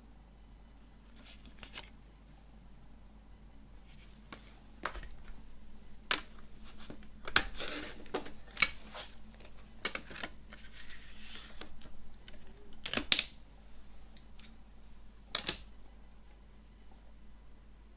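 A CD and its clear plastic case being handled: a string of sharp plastic clicks and snaps with short crinkly rustles. These start about five seconds in, the loudest snap comes about thirteen seconds in, and they die away near the end.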